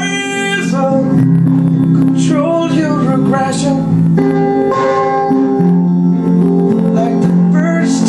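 A man singing over held guitar chords, in short sung phrases with gaps between them.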